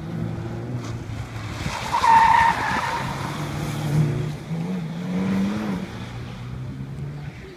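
Sports car's engine working hard through a cone course, with the tires squealing for about a second around two seconds in as the car corners. Later the engine note rises and then drops back.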